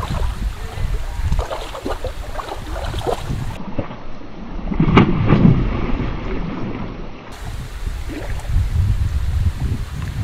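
Hooked catfish thrashing and splashing at the water's surface, with the loudest splash about five seconds in. Wind buffets the microphone throughout.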